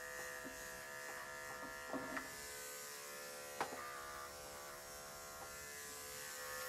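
Electric dog-grooming clippers running with a steady hum, with a few brief clicks, the loudest about halfway through.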